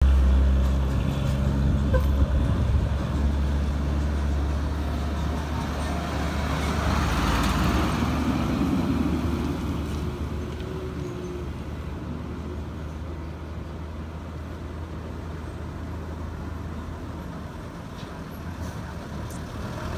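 Heavy diesel trucks passing close on a road: a truck engine runs with a deep hum that is loudest at the start and fades as it moves away, then the next truck is heard coming closer near the end.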